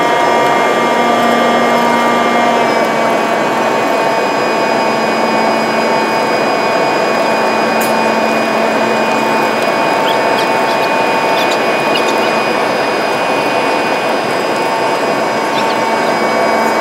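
Airbus A320 cabin noise in the climb after takeoff: the jet engines' steady rushing noise with several high, steady whining tones over it.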